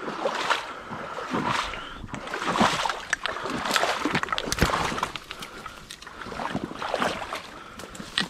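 Footsteps wading through shallow swamp water, splashing and sloshing at about one step a second.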